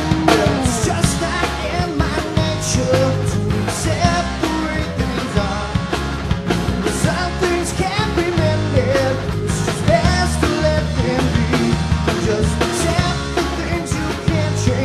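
Rock song with a drum kit and a singing voice.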